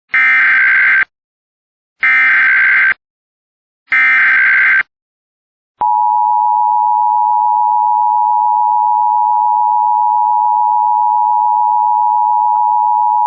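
Emergency Alert System opening: three one-second bursts of SAME header data tones, two seconds apart, carrying the coded Child Abduction Emergency alert. About six seconds in, the steady two-tone EAS attention signal begins, made of the 853 and 960 Hz tones sounding together, announcing that an emergency message follows.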